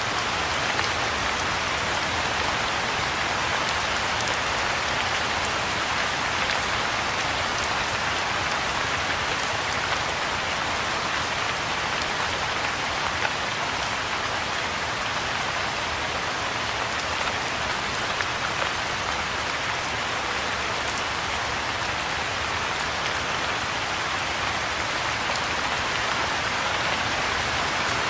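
Steady rain falling on the leaves of a tree, an even hiss at a constant level with faint scattered drop ticks.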